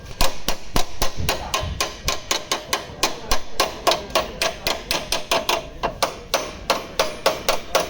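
Hammer beating a sheet-metal car body panel in rapid, even blows, about four a second, each with a short metallic ring: panel beating to straighten front crash damage.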